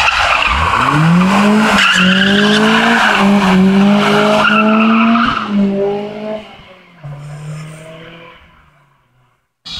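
Competition BMW E30 3 Series drifting through a hairpin: its engine revs up sharply about a second in and is held high while the tyres squeal and slide. The engine note then steps down as it shifts up and pulls away, fading to near silence near the end.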